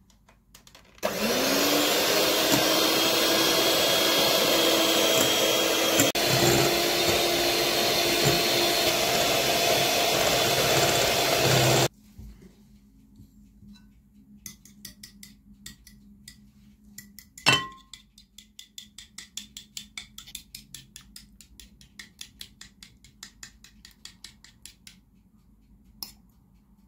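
Electric hand mixer whipping egg whites in a glass bowl: it starts about a second in, its pitch rising as it spins up, runs steadily, and cuts off suddenly about halfway through. Then come quick, light, regular clinks of a fork beating egg yolks against a china bowl, with one louder ringing clink in the middle.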